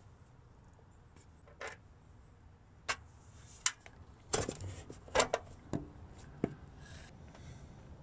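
Hand tools and metal car parts clicking and knocking as they are handled: about seven separate sharp knocks spread over several seconds, bunched most closely in the middle.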